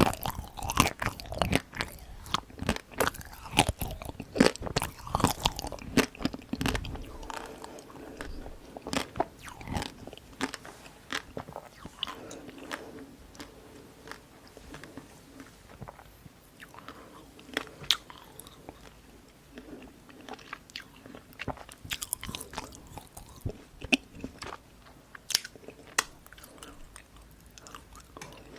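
Close-miked crunching and chewing of dark-chocolate-coated ice cream bites: the hard chocolate shell crackles as it is bitten. The crunches come thick and fast for about the first seven seconds, then thin out into slower, scattered crunches and chewing.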